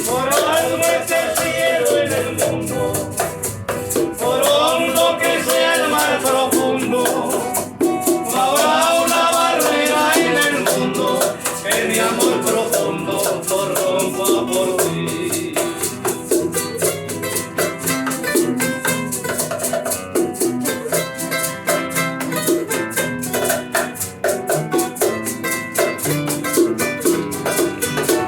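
Instrumental passage of a bolero played on guitars, with maracas shaking a steady beat; a gliding lead melody carries the first part.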